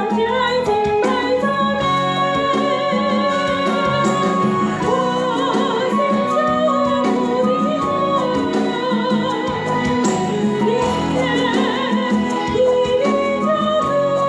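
Korean Christian praise song: singing with vibrato over instrumental accompaniment.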